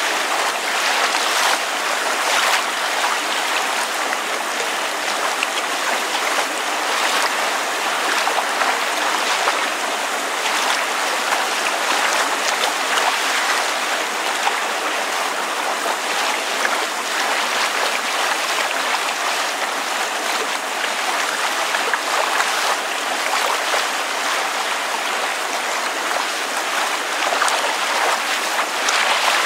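Water lapping against a surface under falling rain: a steady, even wash of water noise with many small splashes and no low rumble.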